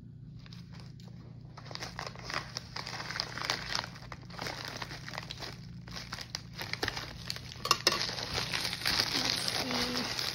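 Paper and plastic packaging crinkling and rustling as a mail-order parcel is opened and handled by hand, with irregular crackles over a steady low hum.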